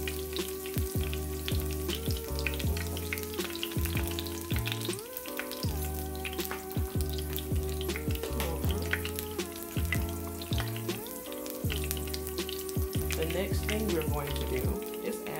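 Thyme sprigs gently sizzling and crackling in warm oil in a nonstick skillet, with steady background music and a bass line underneath.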